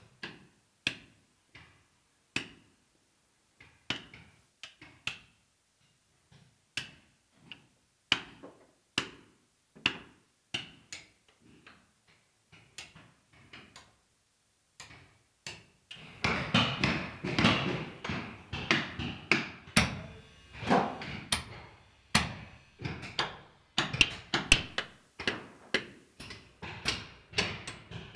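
Caulking mallet striking a caulking iron, driving oakum into the plank seams of a wooden hull. It starts as single sharp taps about once a second, and from about halfway it turns into faster, louder, overlapping blows.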